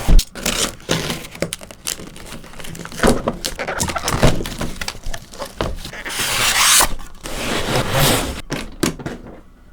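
Unboxing handling noise: a quick run of clicks, knocks and scrapes of packaging and case being opened, with a longer rustling swell about six seconds in and another near eight seconds.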